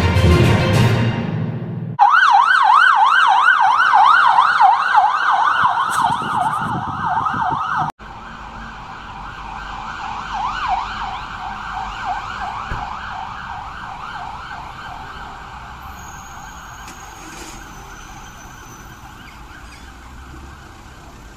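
Intro music for the first two seconds, then a Man TGE ambulance's siren sounding a fast up-and-down yelp, about two to three sweeps a second. About eight seconds in it drops suddenly in level and then slowly fades as the ambulance drives away.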